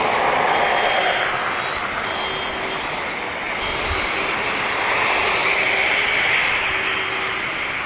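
Loud street ambience: a continuous roar of traffic noise that swells near the start and again later, with faint steady tones running through it.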